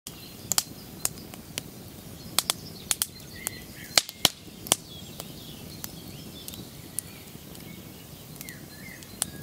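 Wood fire of split kindling crackling, with irregular sharp snaps and pops over a steady low rush.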